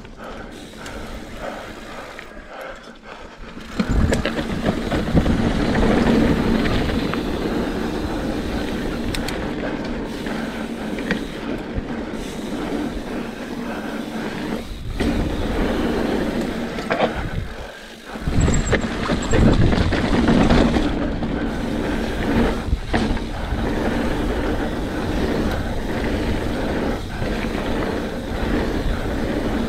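Mountain bike riding fast along a dirt singletrack: steady rumble of the tyres on the dirt and the rattle of the bike. It gets louder about four seconds in, with a brief lull about two-thirds of the way through.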